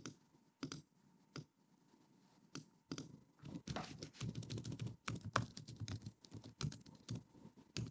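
Typing on a computer keyboard: a few scattered keystrokes at first, then fast, continuous typing from about three seconds in.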